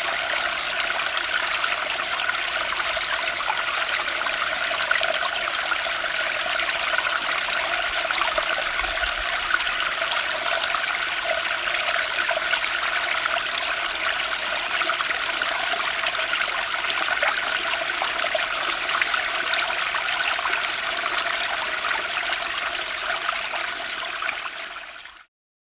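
Water running in a steady, continuous flow that dips slightly and then cuts off abruptly near the end.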